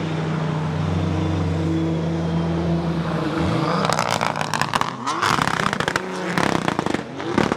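Race car engine sound: a steady engine note, then a few rising-and-falling revs from about three and a half seconds in, mixed with sharp clicks and rattling.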